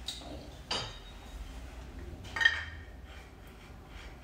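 Small metal plumbing fittings clinking together as they are handled: a couple of sharp clinks with a short ring, the loudest about two and a half seconds in.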